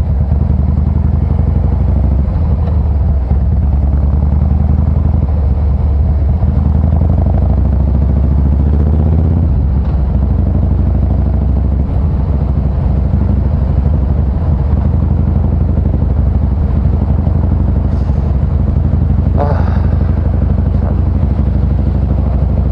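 Harley-Davidson Fat Boy Special's 103-cubic-inch V-twin running steadily under way through a Supertrapp variable exhaust.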